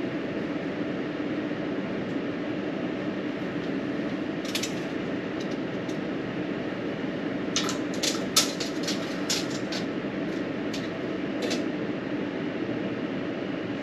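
A steady machine hum, with sharp clicks and knocks: one near the middle, then a run of about a dozen over the next few seconds.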